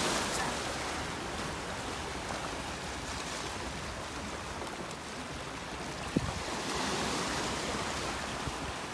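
Sea water washing over a rocky shore: a steady rushing wash that swells a little in the second half. A single sharp knock about six seconds in.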